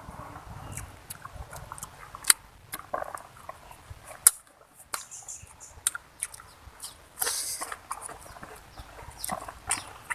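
A person eating: irregular wet chewing and lip-smacking clicks, with a short pause about four seconds in.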